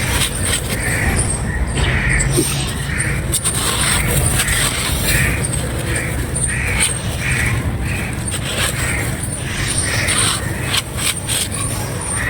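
Repeated animal calls, about two a second, over scattered crisp crunches of dry clay being crumbled and a steady low rumble.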